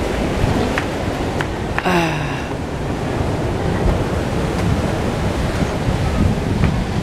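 Steady wash of ocean surf with wind buffeting the microphone. A short falling call, like a distant shout, cuts through about two seconds in.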